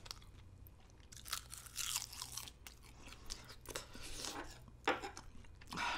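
Crisp roasted seaweed (gim) crackling as it is crushed by hand over a bowl, with crunchy chewing: a series of short, dry crackles.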